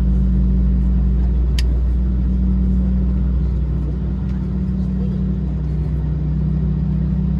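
Steady low rumble and hum inside the cabin of an Airbus A321-231, its IAE V2500 engines running at an even pitch. There is a single sharp click about a second and a half in.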